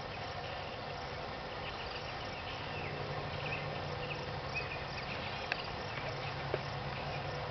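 Outdoor ambience: a steady hum of insects over a low, even rumble, with a few short bird chirps.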